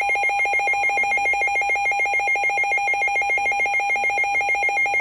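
Emergency Alert System attention tone: a loud, rapidly pulsing electronic alert tone, steady and unbroken, sounding ahead of a severe thunderstorm warning.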